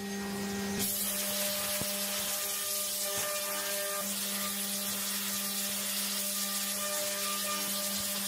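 A CNC machining-centre spindle turns a 20 mm BIG DAISHOWA Fullcut Mill FCR indexable end mill at 12,000 rpm, giving a steady high hum with several overtones. About a second in, a loud steady hiss joins it as the cutter feeds down into the aluminium alloy block and mills a round pocket.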